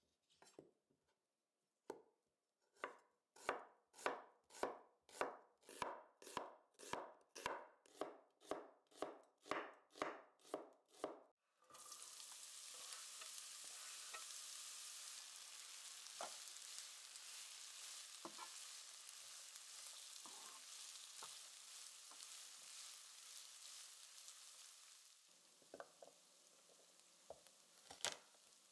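A wide cleaver chopping onion on a bamboo cutting board, about twenty even strokes at roughly two a second. Sliced onions then sizzle steadily in hot oil in a frying pan. Near the end comes a sharp knock as the flat of the knife is pressed down on garlic cloves to crush them.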